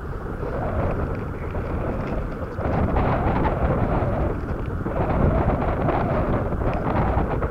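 Wind buffeting the microphone: a steady low rumble that swells and eases, with a few faint ticks above it.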